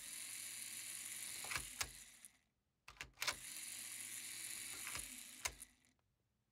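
Small LEGO Power Functions electric motor running with a faint steady hum in two runs of about two seconds each. It is switched on and off by a LEGO Technic push-push latching switch working a Power Functions pole-reverser switch. Plastic clicks from the switch mark the presses.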